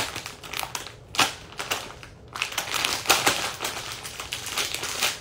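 Plastic bag crinkling and rustling in irregular crackles as it is torn open and handled.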